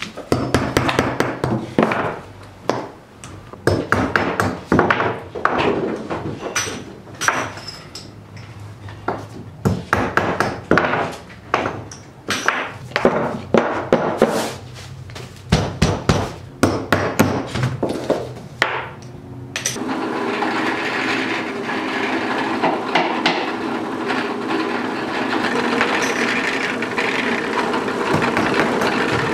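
A hammer strikes metal bottle caps on a wooden work table in many irregular blows. About two-thirds of the way through, a drill press starts running steadily, boring a hole in a wooden stick.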